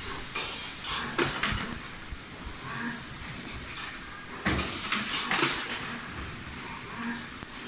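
CNC wire bending machine running through its forming cycle: bursts of mechanical clatter and metal clinking as steel wire is fed and bent, repeating about every four seconds.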